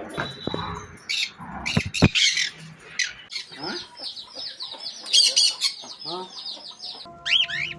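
Cockatiels squawking and chirping: harsh calls in the first seconds, then a fast run of repeated short chirps from about three seconds in until near the end.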